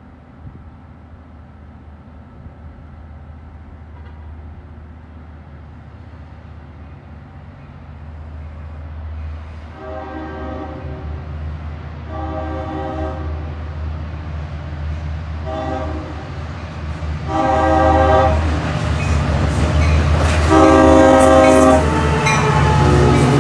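A Long Island Rail Road train of bi-level coaches approaching and passing close by, its rumble swelling steadily. It sounds its horn five times: two long blasts, a short one, then two longer ones. Loud rolling-stock noise near the end as the cars go by.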